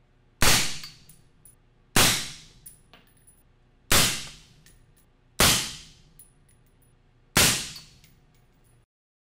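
Five suppressed rifle shots in 6.5 Creedmoor, 147-grain, through an AB Raptor 7.62 six-stack suppressor on a 2-inch reflex mount, about one every 1.5 to 2 seconds, each a sharp report that fades quickly. The meter at mid-gun reads peaks of about 130 to 133 dB.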